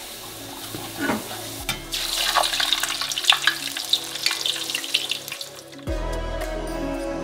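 Discs of potato chip dough deep-frying in a pan of hot oil, sizzling and crackling, much louder and busier from about two seconds in, while a metal slotted spoon stirs and turns them. Background music plays underneath.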